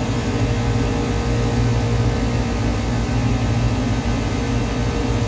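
Lennox rooftop AC unit's compressor and condenser fans running steadily, a low hum with a faint steady tone above it. The system is low on R-22 and is taking on refrigerant as it runs.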